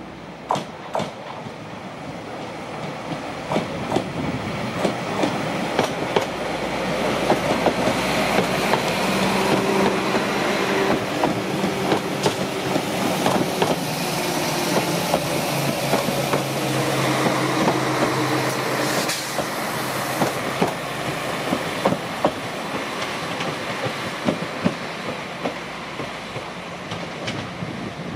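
Transport for Wales Class 197 diesel multiple unit passing close at low speed: a low engine drone under steady running noise, with wheels clicking over rail joints. It grows louder over the first several seconds, is loudest through the middle, where the engine note steps down in pitch, and then eases off.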